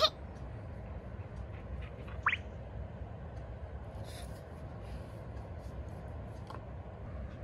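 Border Collie giving two short, high whines that rise in pitch, one right at the start and one about two seconds in, as attention-seeking begging to be petted. A steady low hum runs underneath.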